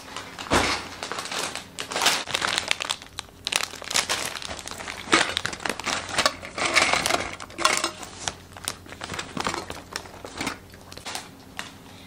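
Plastic shopping bags crinkling and rustling as they are handled, with many irregular small clicks and knocks and a dull thump about half a second in.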